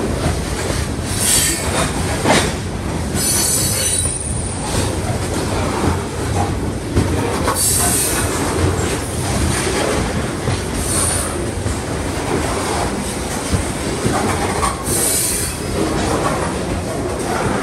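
Freight train of covered hopper cars rolling past: the steady rumble and clatter of steel wheels on the rails, with high squeals from the wheels rising briefly several times.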